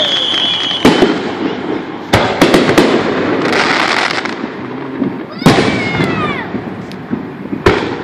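Aerial fireworks display: a string of shell bursts going off one after another, with crackling between them. The loudest bang comes about five and a half seconds in.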